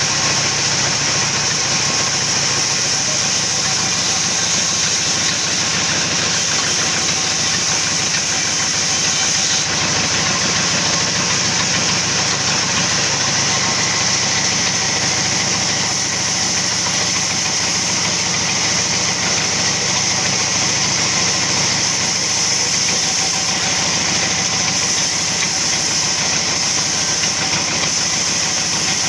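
Sawmill machinery running steadily, a constant mechanical drone with a strong high hiss that holds unchanged throughout.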